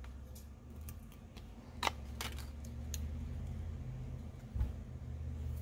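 Plastic opening picks clicking and scraping against a phone's frame as the glued screen is pried up, with two sharp clicks about two seconds in and another near the end, over a low steady hum.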